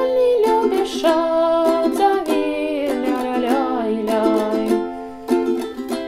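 Ukulele strummed in a steady down-and-up rhythm, ringing chords. There is a short break about five seconds in, then a fresh strum that starts to fade.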